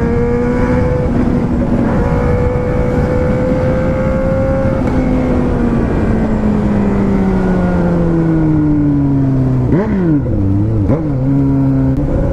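Four-cylinder car engine running under way. Its note holds, then falls slowly, rises and falls sharply twice, and settles at a steady lower pitch.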